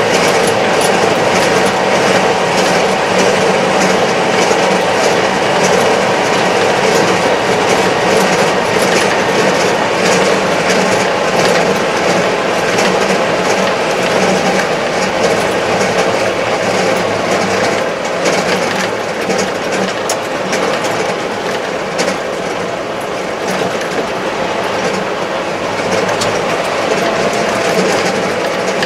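Kubota MZ755 tractor's diesel engine and drivetrain running steadily at road speed, heard inside the closed cab, with a light continual rattle over the drone.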